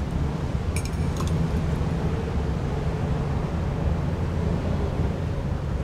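Steady low engine drone with wind and water noise, and a couple of brief high chirps about a second in.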